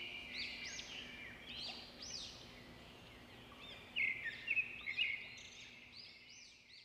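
Small birds chirping: a quick, overlapping run of short high chirps that each rise and fall, louder for a moment about four seconds in.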